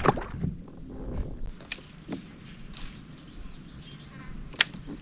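A fishing rod swishing through a cast, followed near the end by a single sharp click, with birds calling faintly.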